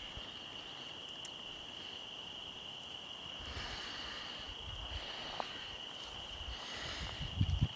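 Insects chirring outdoors, one steady high-pitched tone that does not change. Near the end, a few soft low thuds of the horse's hoofbeats on grass come in.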